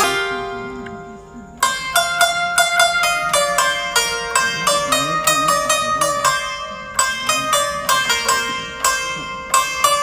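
Background music on a plucked string instrument playing quick, ringing notes. A held note fades out at the start, and about a second and a half in the rapid plucking starts again and carries on.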